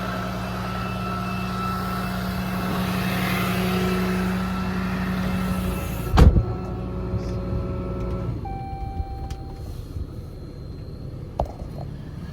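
Ram 5500's 6.7 Cummins turbo-diesel idling with a steady hum. A single loud thump comes about six seconds in, and the sound drops to a quieter, steady background a couple of seconds later.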